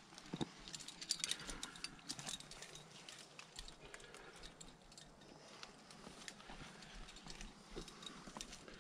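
Irregular light clicks, taps and scuffs of a climber moving on rock with climbing gear, several a second, with a few sharper knocks near the start and about a second in.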